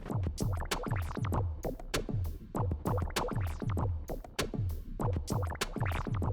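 Electronic background music with a steady drum-machine beat of deep kicks that drop in pitch, sharp hi-hat hits and scratch-like gliding sounds.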